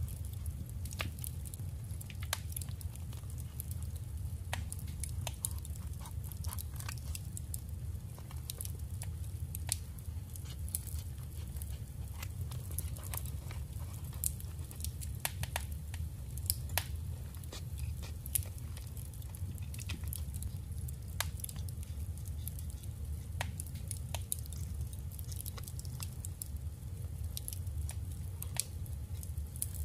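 Paper and craft materials being handled close up: scattered small clicks, taps and rustles at an irregular pace, over a steady low hum.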